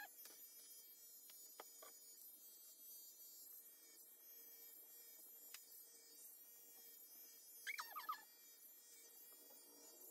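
Corded electric pet clipper running with a faint steady hum while shaving a cat's fur. A cat gives one short meow about three-quarters of the way through.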